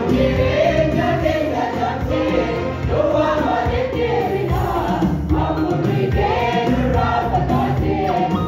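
Mixed choir of men and women singing a hymn (faarfannaa) in Afaan Oromoo, the voices moving together in several parts.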